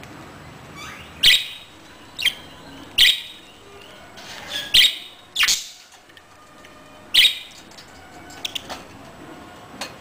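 Budgerigars giving short, sharp chirps: about six loud calls at irregular intervals, with a few fainter ones near the end.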